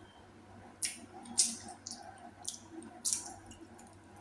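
Wet mouth sounds of eating: about five short lip smacks and squishy clicks while chewing, spaced roughly half a second apart.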